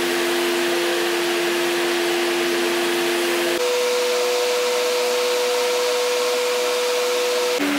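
Carpet-cleaning machine's motor running with a steady hum over a hiss of spraying water. The hum jumps to a higher pitch about three and a half seconds in and drops to a lower one near the end.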